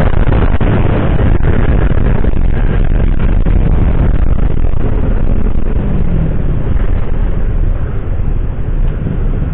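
Steady, loud wind rumble on a camera microphone on a motor scooter riding at about 50–55 km/h, with road and traffic noise underneath.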